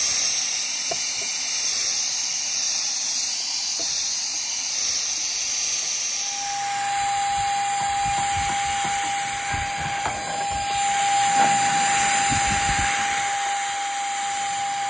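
Handheld vacuum cleaner running steadily as its nozzle is worked over the engine-bay filter housing. About six seconds in the sound changes and a steady whine joins the motor noise.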